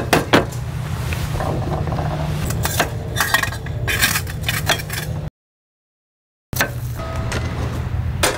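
A kitchen knife chopping garlic cloves on a wooden cutting board: sharp taps on the wood and light clinks of utensils, over a steady low rumble. The sound cuts out completely for about a second a little past halfway.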